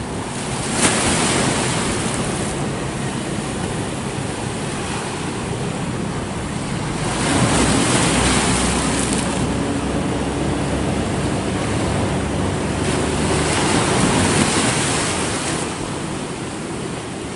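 Sea waves washing onto a rocky shore, a steady rush of surf that swells three times as waves break, with wind on the microphone.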